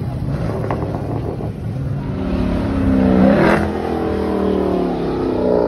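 A muscle car accelerating hard past, its engine climbing in pitch through the gears and loudest as it goes by about three seconds in.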